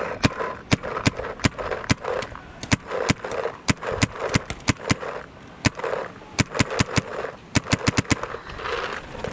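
Paintball markers firing again and again in irregular strings of sharp pops, with a quick run of about five shots near the end.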